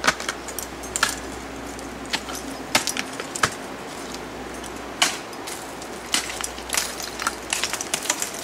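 Steel crampon points striking and scraping ice and carabiners clinking on a climbing harness as an ice climber steps up over a bulge: irregular sharp clicks and clinks, thickest in the last few seconds.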